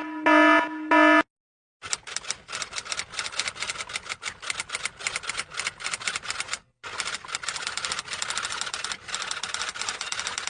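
A pitched electronic beeping ends about a second in. After a short pause comes a long run of rapid, clattering key clicks like fast typewriter typing, broken by a brief gap about two-thirds of the way through.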